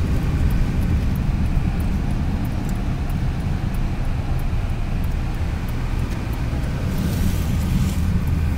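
Car cabin noise while driving: the engine and tyres give a steady low rumble, heard from inside the moving car.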